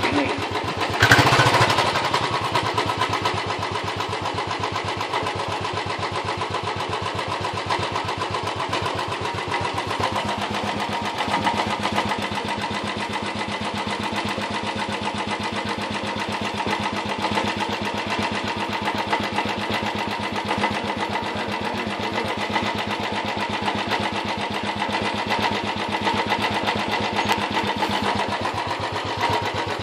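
Royal Enfield single-cylinder motorcycle engine idling steadily, briefly louder about a second in.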